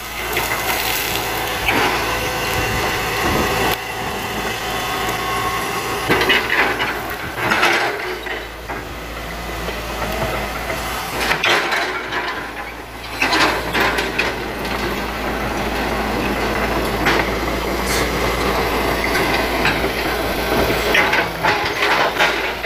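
Hitachi crawler excavator's diesel engine running under load while its bucket digs out and pushes over an oil palm, with bursts of cracking and crunching of wood and roots several times, loudest around a quarter of the way in, about halfway and near the end.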